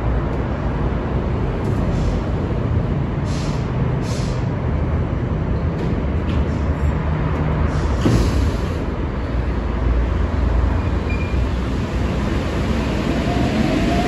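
NS-04 rubber-tyred metro train standing at the platform with its equipment running in a steady low rumble, with short air hisses and its doors closing about eight seconds in. Near the end it starts to pull away, its traction motors whining and rising in pitch.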